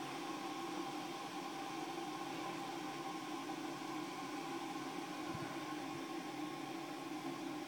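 Motor drive of a homemade orrery running, turning the planet arms: a steady whirring hum with a few held tones over a hiss.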